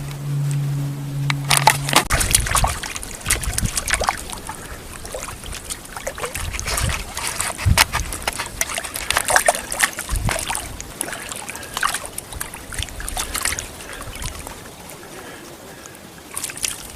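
A held low musical chord that stops about two seconds in, then irregular water splashing and sloshing with scattered sharp clicks and knocks, fading toward the end.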